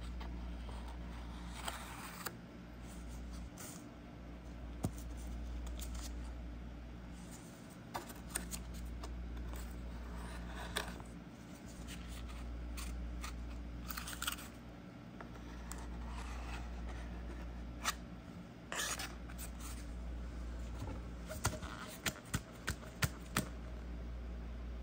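Sandpaper worked by hand against the edge of a homemade RC snowmobile body shell: a few short, scattered rasps over a steady low hum. A quick run of sharp clicks and taps comes near the end.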